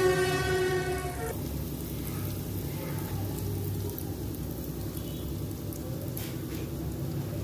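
Dough balls deep-frying in hot oil, a steady sizzling hiss. A held pitched note sounds over it for about the first second and stops.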